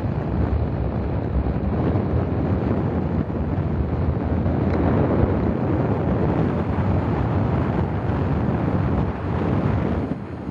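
Wind buffeting the microphone of a vehicle driving along a paved road: a loud, steady rushing noise with road rumble underneath. It dips briefly near the end.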